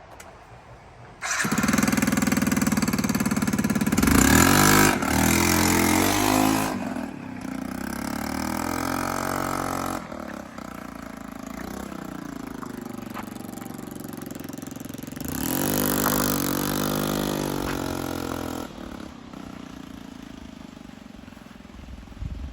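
Yamaha BWS scooter engine on the move, fitted with a performance variator: it comes in about a second in and revs up and down, runs steadier, climbs again about two-thirds through, and eases off near the end, with wind rushing past. The rider takes the variator's rollers to be too heavy on this run.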